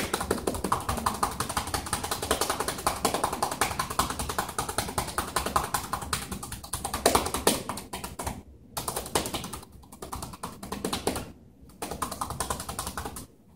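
Cupped hands clapping rapidly and evenly on a patient's bare back: manual chest percussion for postural drainage, to break up mucus in the lungs. The clapping runs steadily for about eight seconds, then comes in three shorter runs with brief pauses, and stops just before the end.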